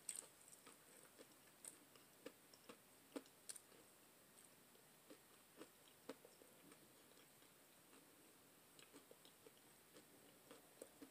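Near silence with faint, irregular soft clicks of quiet chewing.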